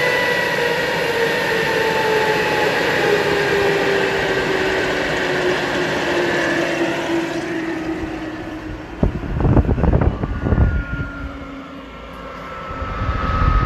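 Motorlet M701C-500 centrifugal-compressor turbojet spooling down after shutdown: a whine of several tones falling steadily in pitch over a rushing noise that fades away. About nine seconds in, low rumbling bursts break in over the faint whine that remains.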